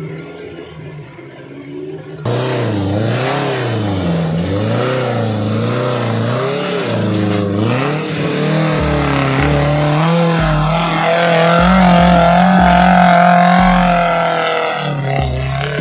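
Small 4x4 engine working hard off-road, revving up and down again and again and then held at high revs under load as the Suzuki Jimny Katana climbs out of a muddy creek bed and up a steep rocky slope. A quieter engine is heard for the first two seconds before the loud one cuts in.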